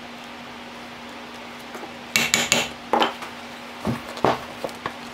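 Sharp metallic clinks and knocks from a small steel hand tool and the bag's metal hardware being handled on a workbench: three quick clicks about two seconds in, then a few scattered knocks as the leather bag is moved.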